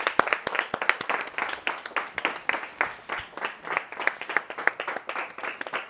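A small group of people applauding, with many separate hand claps in quick succession.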